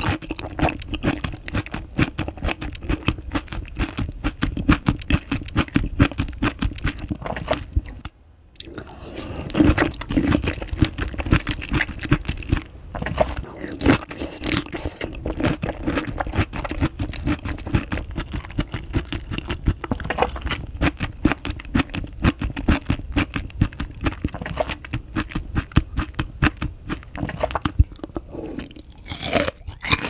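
Close-miked chewing of raw oyster: a dense run of wet, squishy mouth clicks and smacks, with a brief pause about eight seconds in.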